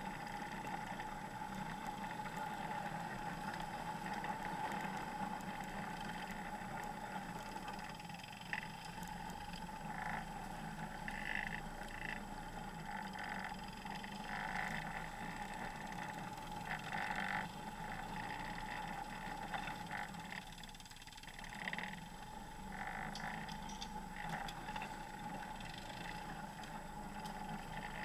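Off-road vehicle engine running steadily while driving, with short bursts of clatter now and then.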